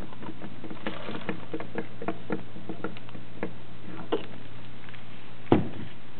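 Light metallic clicks and rattles as a 5-lug wheel hub is worked around and pulled off the splined stub of a CV axle. About five and a half seconds in there is a single heavy knock as the axle is set down on a table.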